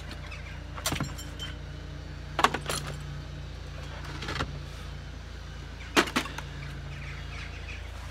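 Tool bags and the metal tools inside them being shifted on a plywood van platform: a handful of short knocks and clinks spread through, over a steady low hum.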